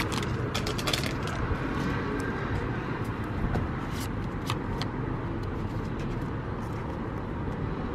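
Steady hum of distant road traffic, with a few light clicks of paper trading cards being flipped through by hand.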